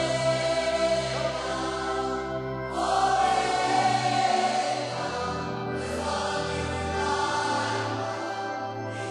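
Live gospel praise-and-worship music with a choir holding long sustained notes, the chords changing about every three seconds.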